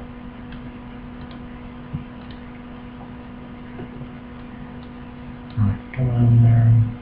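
Steady electrical hum and hiss from the recording microphone, with a few faint mouse clicks. A man's voice comes in briefly near the end.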